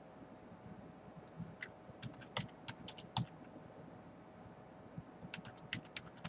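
Computer keyboard typing: two short runs of keystroke clicks, each lasting about a second, over a faint steady hum.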